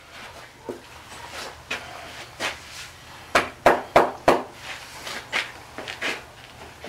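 Sharp knocks from a yearling filly's hooves during a hoof trim, scattered at first, then four loud ones in quick succession about halfway through.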